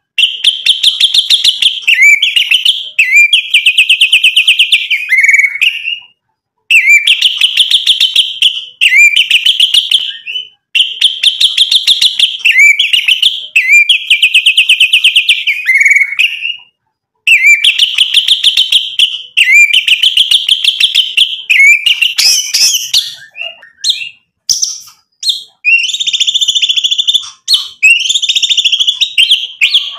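White-rumped shama (murai batu) singing loudly in phrases of very fast repeated rattling notes, each about a second or two long with short breaks between them. Near the end the song changes to more varied, longer whistled notes.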